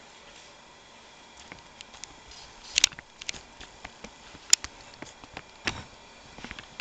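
A few scattered sharp clicks and knocks over faint room hiss: handling noise from a handheld camera as it is carried and moved.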